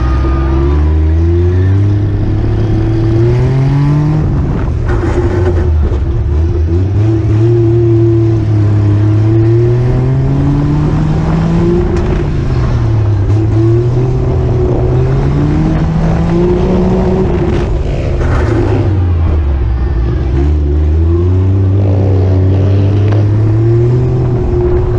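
Daihatsu Mira's small petrol engine heard from on board, lapping a dirt track. Its pitch climbs steadily and then drops back sharply, about four times over, as it revs up along the straights and eases off.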